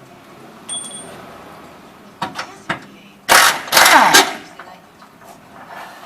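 A few sharp metallic clicks and a ringing clink, then a loud burst of mechanical noise lasting about a second, about three seconds in, with a pitch that falls as it dies away.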